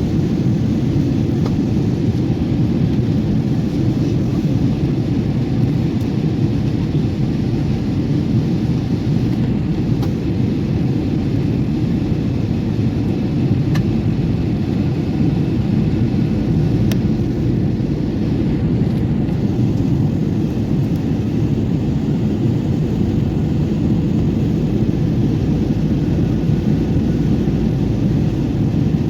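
Steady low roar of an airliner's engines and airflow heard from inside the passenger cabin, even and unchanging, with a few faint ticks.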